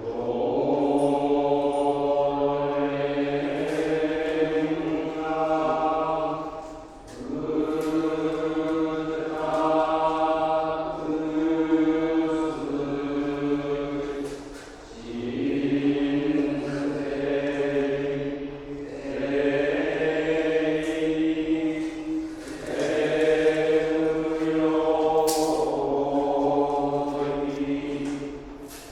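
Buddhist monks chanting together in long, held notes, with a low sustained voice beneath higher ones. The phrases break briefly for breath about every seven or eight seconds.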